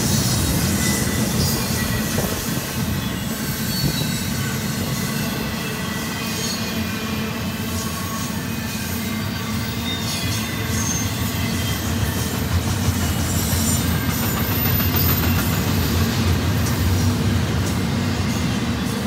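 Union Pacific double-stack intermodal freight cars rolling past: a steady rumble of steel wheels on the rail, with thin high wheel squeals and scattered clicks over the top.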